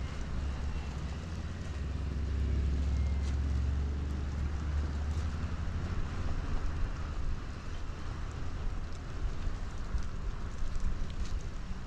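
Low, steady engine rumble from a tugboat under way, heard over wind and water hiss. The rumble eases about halfway through.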